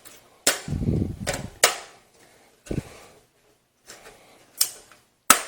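Stamped sheet-metal motherboard I/O shield being pushed into a PC case's rear opening: several sharp metallic clicks and snaps as its tabs catch and it seats, with a dull handling thump about a second in.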